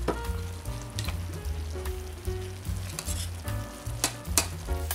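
Cream and shiitake mushroom sauce sizzling and bubbling in a Saladmaster electric skillet, with a utensil stirring and a few sharp clicks against the pan. Soft background music plays underneath.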